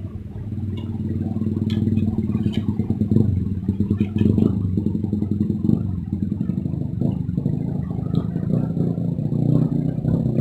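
Motorcycle exhaust: the engine runs steadily and gets louder over the first few seconds. A few sharp clicks sound in the first four seconds.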